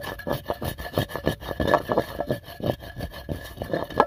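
Wooden pestle grinding carom (ajwain) and cumin seeds in a terracotta mortar: quick, uneven strokes of wood rubbing and scraping against clay.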